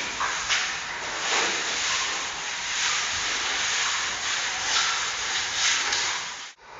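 Steady hiss of outdoor noise with a few swells, cutting out abruptly near the end.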